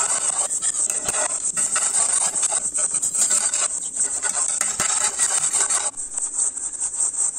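Steel ladle stirring a thin curd gravy in a stainless steel pan, scraping and rubbing against the metal in irregular strokes.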